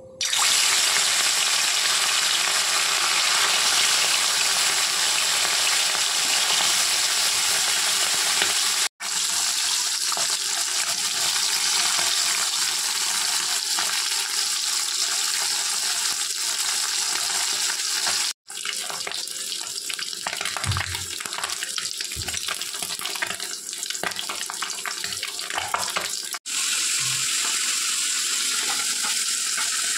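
Small whole mourola fish (mola carplets) frying in hot oil in a steel wok: a loud, dense sizzle that cuts out for an instant three times.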